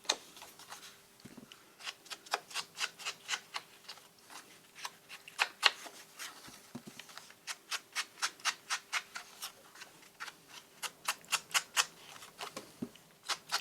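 An ink pad being rubbed in quick repeated strokes along the cut edges of paper, about three or four strokes a second, with a couple of short pauses.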